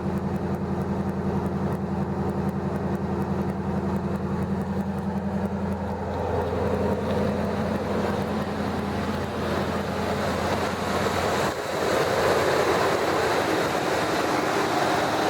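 Supercharged 5.4-litre Ford Lightning V8 idling steadily a minute after a cold start. About two-thirds of the way through, the low hum drops away and a louder, hissier running sound takes over.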